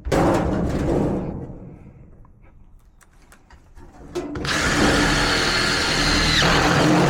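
Power drill driving screws into a sheet-metal supply plenum: a short run right at the start, a few light clicks, then a longer run of about two seconds with a steady motor whine that cuts off near the end.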